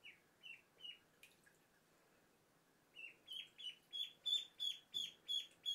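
Ducklings peeping: three short, high, falling peeps at the start, then from about three seconds in a steady run of about three peeps a second.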